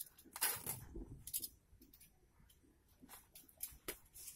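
Faint, intermittent rustling of a cloth sack and a plastic tarp as mattress filling is pulled out by hand and the sack is lifted, in a few short scattered bursts.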